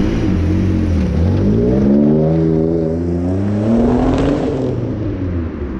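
Mitsubishi GTO twin-turbo V6 accelerating hard, the engine note climbing steadily in pitch for about three seconds, then easing off and fading near the end.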